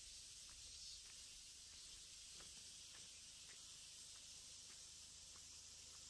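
Near silence: quiet outdoor ambience with a steady faint high hiss, a low rumble underneath and a few soft scattered ticks.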